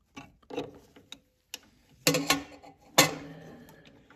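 Metal tool clicking and clinking against the steel knife and cutterhead of a DeWalt DW734 thickness planer as the knife is worked loose. A handful of separate clicks, with two louder clinks about two seconds in and the loudest, ringing clink about three seconds in.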